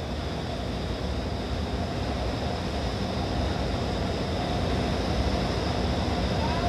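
The radial engine of a single-engine biplane transport (a Nanchang Y-5, China's An-2) droning steadily in flight, heard from inside the aircraft as a dense rushing noise with a low engine hum, growing slowly louder.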